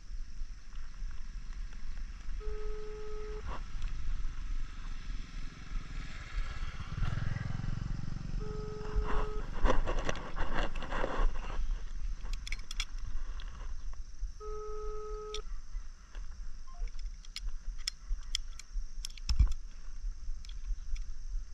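Hand tools working a fiber-optic drop cable: small clicks and scrapes of stripping and cleaving, mixed with handling and wind noise on the microphone. A short beep sounds three times, about six seconds apart, each lasting about a second.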